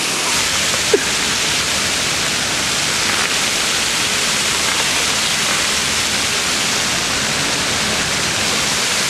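Arc of fountain water jets spraying and splashing steadily close to the microphone, a dense even rush of water. One brief sharp sound about a second in.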